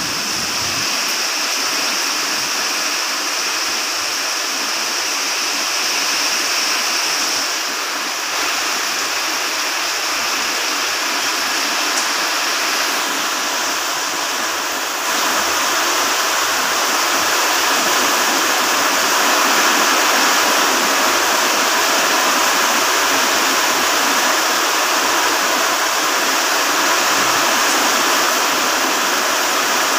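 Heavy tropical downpour: a steady, loud rush of rain that grows a little heavier about halfway through.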